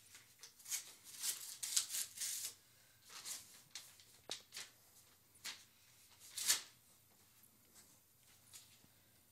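Paper rustling and crinkling as an envelope is handled and opened by hand, in a string of short bursts, the loudest about six and a half seconds in; it dies away over the last couple of seconds.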